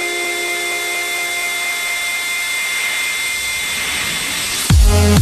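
Electronic dance music build-up: held synth tones fade under a swelling white-noise sweep. About four and a half seconds in, the beat drops with heavy kick drums.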